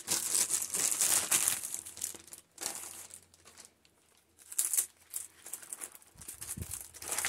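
Clear plastic packaging of a rolled diamond painting canvas crinkling as it is handled and unrolled. The rustling comes in bursts, busy for the first couple of seconds, stops for about a second near the middle, then starts again.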